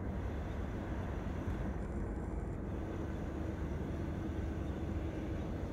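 Jet engines of a Boeing 787-9 Dreamliner rolling along the runway after landing: a steady, even rumble with a faint steady hum.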